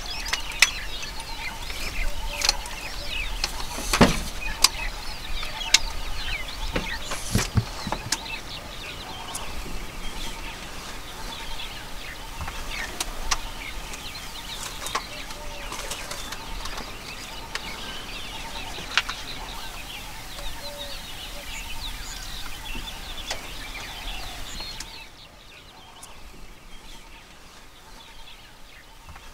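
Wild birds calling and chirping steadily, with scattered sharp clicks and snaps among them. The whole soundscape turns noticeably quieter near the end.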